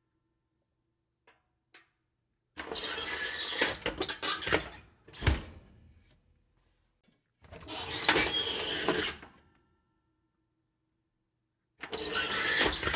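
Creaky oven door hinges creaking as the door swings, three times: a two-second creak about two and a half seconds in, a second one around seven and a half seconds, and a third near the end. A single thunk, the door knocking shut, comes a little after five seconds.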